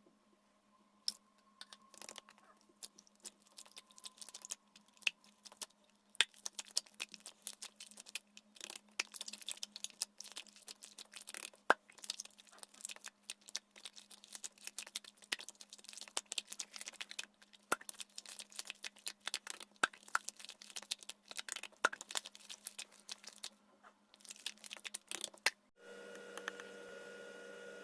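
Slime being squeezed and stretched by hand, sped up, making a rapid, irregular stream of sticky clicks and pops. Near the end the clicking stops and a steady hum begins.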